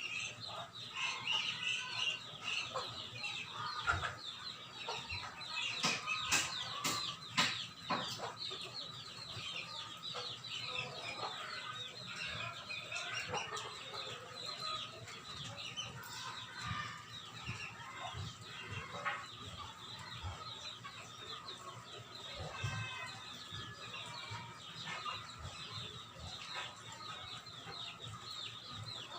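Animal calls: many quick, high chirps and clucking-like calls, with scattered sharp clicks, busiest in the first half.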